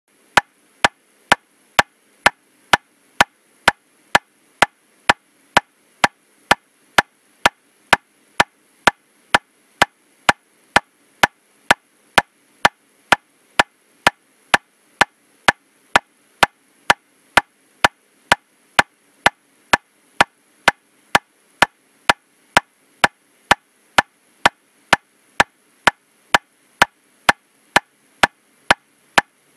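Metronome clicking steadily at 127 beats per minute, about two sharp, identical clicks a second with no accented beat.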